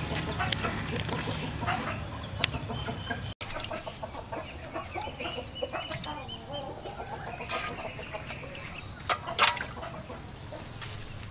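Chickens clucking on and off, with a few sharp clicks and two louder knocks about nine seconds in.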